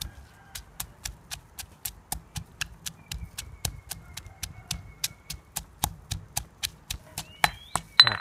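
Stone pestle pounding coriander root, garlic and peppercorns in a stone mortar: a steady run of sharp knocks, about three or four a second, crushing them into a paste.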